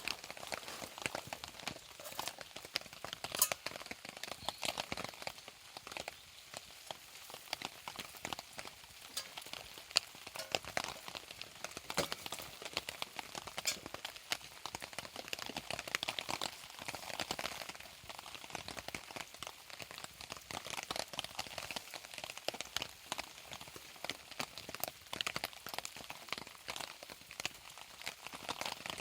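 Rain pattering steadily together with a crackling campfire, dense small ticks and crackles with an occasional louder pop.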